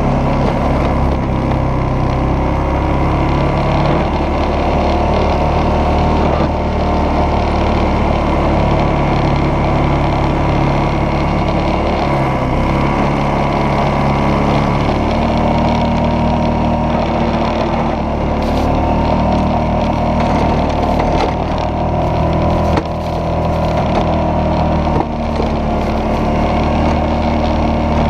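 ATV engine running steadily under load while its front plow blade pushes through deep snow. The engine note steps up and down a few times with the throttle, and there are a few short crackles toward the middle.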